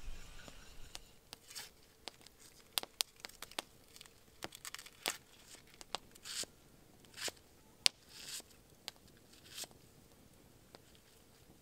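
An onion being peeled and cut with a knife on a wooden chopping stump: short, crisp tearing and crunching sounds and sharp clicks, coming irregularly.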